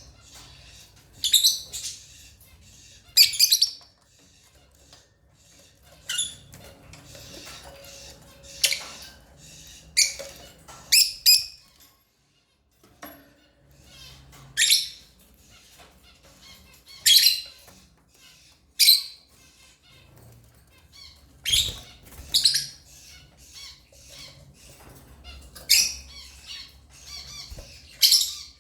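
African lovebirds giving sharp, high-pitched chirps and squawks, one every second or two, with a short lull about twelve seconds in.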